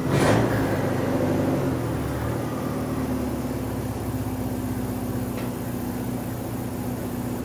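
Turbocharged Nissan Datsun 720 pickup's engine running at a steady pitch, with a brief rushing hiss right at the start.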